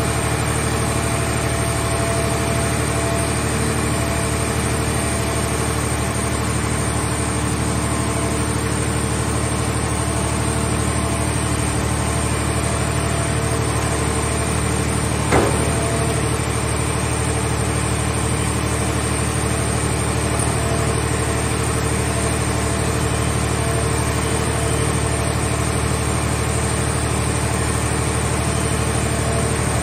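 Scrap car baling machinery running, a steady engine drone from the hydraulic grapple loader and press. One sharp clank about halfway through.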